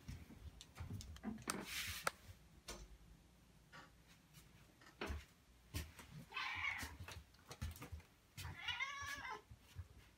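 Domestic tabby cat meowing twice at a closed door, asking to be let through: one call about six seconds in and a second, arching call near the end. Before the calls there are a few taps and a short rustle, the loudest of them about two seconds in.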